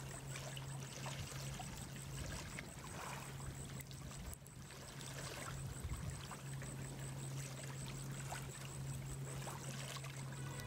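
Faint crackling of a small driftwood campfire, with scattered small pops, over a low steady hum.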